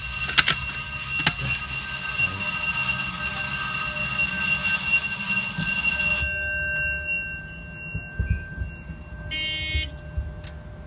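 Fire alarm system in alarm during a pull-station test: a loud, steady alarm tone that cuts off suddenly about six seconds in as the alarm is silenced. A fainter tone lingers afterwards, with a short beep near the end.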